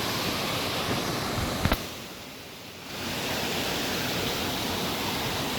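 Steady rush of a waterfall cascading over rocks into pools, with a single sharp click about a second and a half in and a brief dip in the rushing sound soon after.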